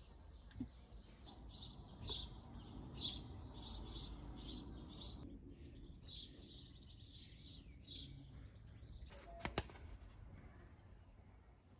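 Marker pen scratching round the outline of a bell base on a black rubber gasket sheet: short scratchy strokes, two or three a second, with a pause about halfway. A sharp click about three-quarters of the way in.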